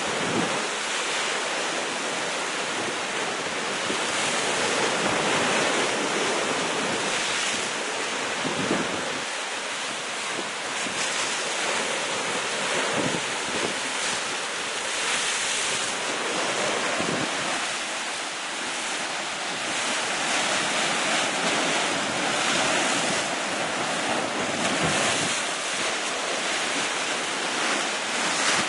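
Sea waves breaking against rocks: a continuous rushing wash that swells and ebbs every few seconds, with wind buffeting the microphone.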